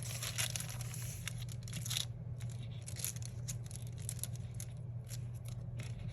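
Paper and sticker sheets being handled on a desk: a crinkling rustle for about two seconds, then scattered light clicks and taps, over a steady low hum.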